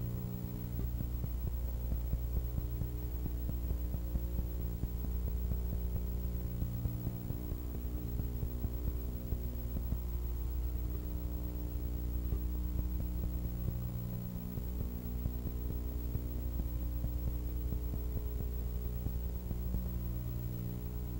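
Steady electrical mains hum, a low buzz with a stack of even overtones and faint crackle. No race-car engines can be heard in it.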